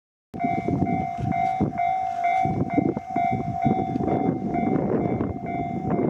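Japanese railway level-crossing warning bell starting up just after the opening and ringing its electronic "kan-kan" at about two strokes a second, the signal that the crossing is closing for an approaching train. Under it runs a loud, rough low rumble.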